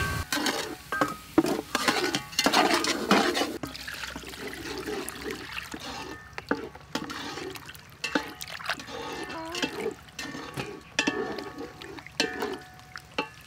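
Hands washing chunks of raw beef and shark fillet in a stainless steel bowl of water: irregular sloshing and splashing with small knocks against the bowl, louder in the first few seconds.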